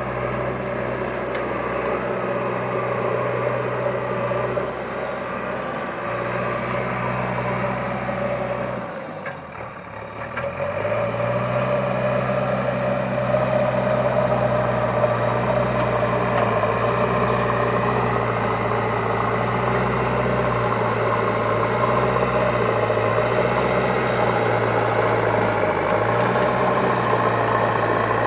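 Diesel engine of a JCB 3DX backhoe loader running steadily with a low hum. About nine seconds in it fades briefly, then comes back steady and a little louder.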